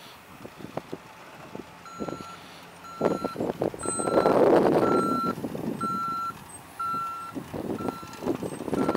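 Vehicle backup alarm beeping steadily, about one beep a second, starting about two seconds in. Under it are crackling knocks and a rushing noise that grows loudest in the middle.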